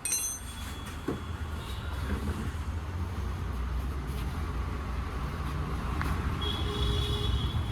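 Low, steady rumble of motor-vehicle noise, with a faint thin high tone near the end.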